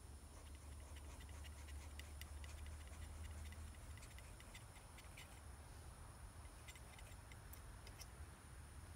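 Near silence: a faint low background rumble with scattered light ticks, in two clusters, early and again near the end.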